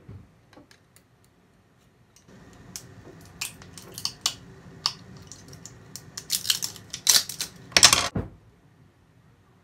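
A knife tapping and prying at the metal lid of a glass jar: a run of sharp clicks and taps for several seconds, loudest near the end.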